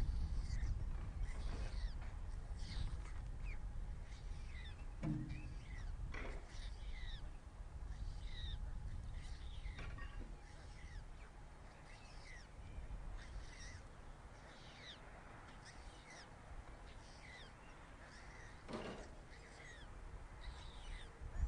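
Small songbirds chirping over and over in the background, short high calls that slide downward, over a low steady rumble, with a few faint knocks.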